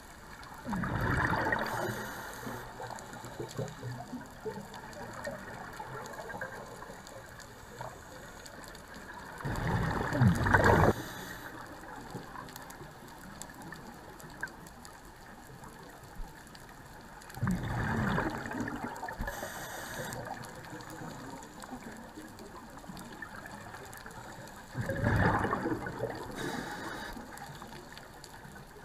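Scuba diver's exhaled bubbles rushing from the regulator in four bursts about seven to eight seconds apart, heard underwater through the camera housing, with a quieter watery hiss between breaths.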